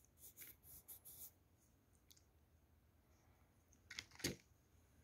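Faint handling noises: soft rustling from fingers working the yarn and glue tube in the first second, then a short tap about four seconds in as the tube of glue is set down on a paper envelope.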